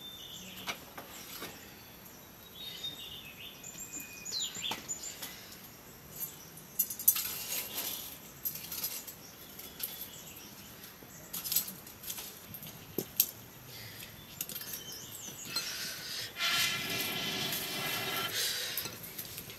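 Scattered knocks and clinks of metal cooking utensils at a wood-fired hearth, with bird chirps in the first few seconds. A longer pitched sound comes in near the end.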